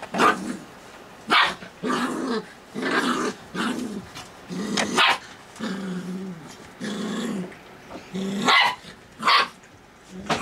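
Golden retriever puppies growling and barking as they play-fight, longer low growls broken by short, sharp yappy barks.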